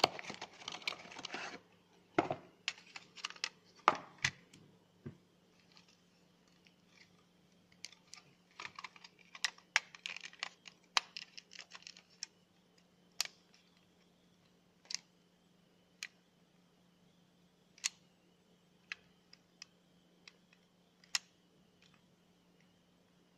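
Irregular sharp clicks and taps, in quick clusters over the first half, then single clicks every second or two. A faint steady high tone comes in about halfway through, over a low steady hum.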